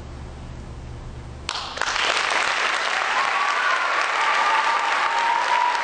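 Audience applause breaking out suddenly about a second and a half in, after a brief hush at the end of a choir song, with some cheering held over the clapping.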